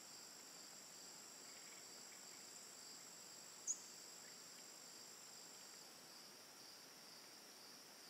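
Faint steady high-pitched insect chirring, like crickets, with one short sharp high chirp about three and a half seconds in.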